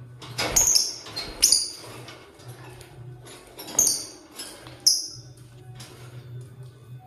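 Lovebirds chirping: about four sharp, high-pitched chirps spread through a few seconds, among faint clicks.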